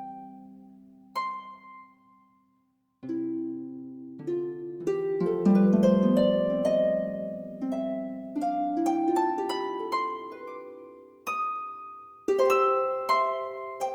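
Instrumental background music of plucked notes that ring and die away, falling almost silent for a moment about two seconds in, then picking up into a busier run of overlapping notes.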